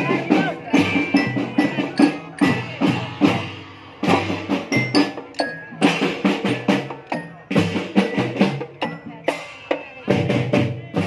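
Marching drum band playing: snare and bass drums beating a steady rhythm, with pitched bell-like mallet notes over them.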